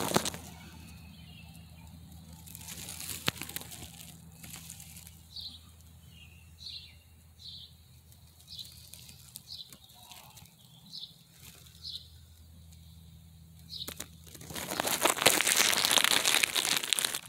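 Crisp, dry summer grass crunching and rustling. There is a brief burst at the start and a louder stretch of about three seconds near the end. In between, a bird gives a string of short, high chirps, roughly one or two a second.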